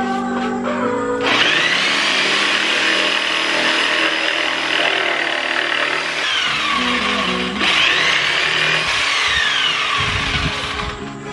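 Corded jigsaw cutting a wooden board. It starts about a second in and stops shortly before the end, its motor whine rising and falling partway through, over background music.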